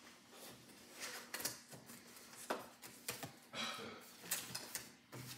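Contents of a cardboard product box being handled during unboxing: scattered light taps, scrapes and rustles as items are moved and lifted out, several quick ones in a cluster about three and a half seconds in.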